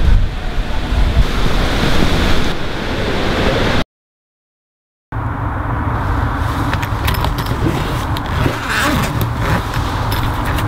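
Steady low rumble of street traffic, then, after a brief dropout, rustling and clicking as a soft fabric cat carrier is handled, a hand on its zipper near the end.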